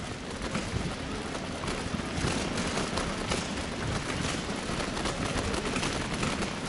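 Wind rushing over the microphone and the road noise of a bicycle ride: a steady hiss with scattered small clicks and rattles, getting a little louder about half a second in.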